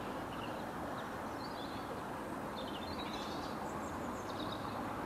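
Small birds chirping and twittering several times over a steady outdoor rumble of background noise.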